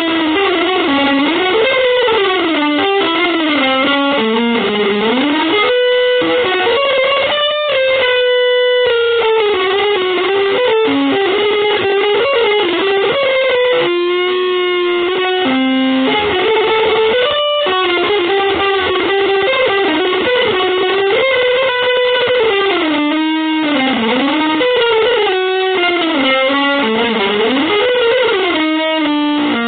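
Electric guitar playing a winding single-note melodic line that slides smoothly up and down in pitch, with a few brief breaks, in a free-jazz style.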